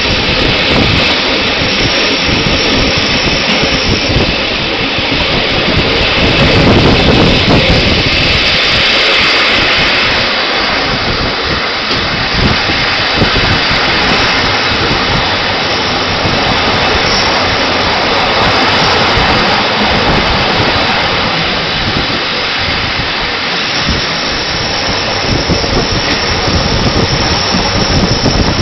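Rhaetian Railway passenger train running, heard from an open coach window: a steady, loud rush of wheels on rails and air, with a thin high squeal near the start and again toward the end.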